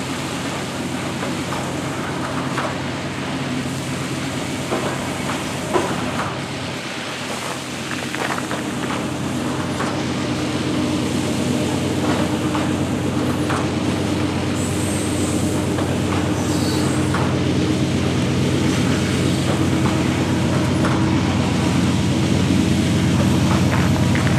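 Loaded coal train rolling slowly past, its car wheels clicking over the rails. A steady diesel locomotive engine drone grows louder from about halfway through as a locomotive in the train comes closer.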